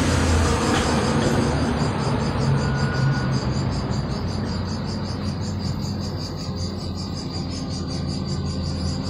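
Outdoor din of insects trilling in a fast, even pulse, over a steady low hum of distant traffic.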